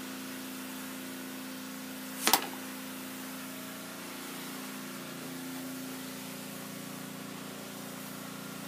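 A single sharp puff of a blowgun shot about two seconds in, as a dart is fired into a foam-backed paper target. A steady low hum continues underneath.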